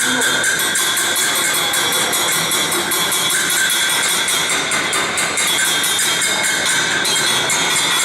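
Electric arc welding: a steady, loud crackling sizzle of the arc with rapid irregular pops, running unbroken.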